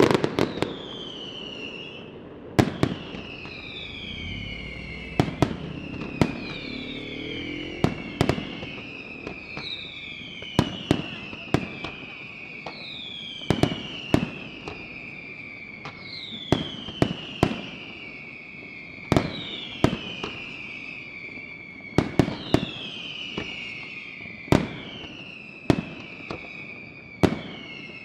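Aerial fireworks display: sharp shell bursts every second or two, with whistles that fall in pitch sounding again and again between and over the bangs.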